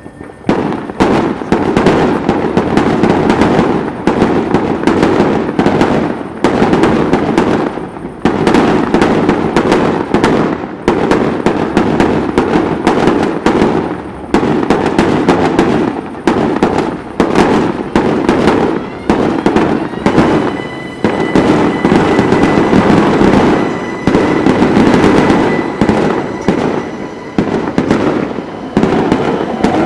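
Fireworks display: a dense, continuous barrage of bangs and crackling. A thin steady whistling tone joins about two-thirds of the way through.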